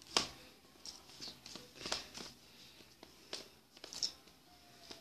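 Hands handling a doll's hair close to the microphone: scattered rustling with small sharp clicks, the clearest just after the start, about two seconds in and around three and a half to four seconds.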